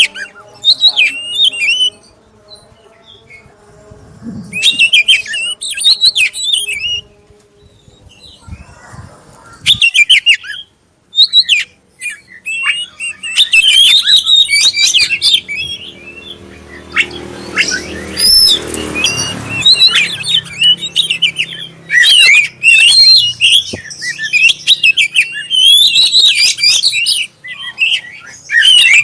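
Black-breasted kacer (Oriental magpie-robin) singing loud, varied phrases of quick whistles and chattering notes. The song comes in bursts separated by short pauses: a lure song meant to provoke a caged bird into singing.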